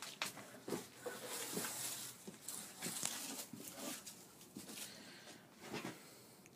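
Scattered light knocks and clicks over a soft rustling: handling noise.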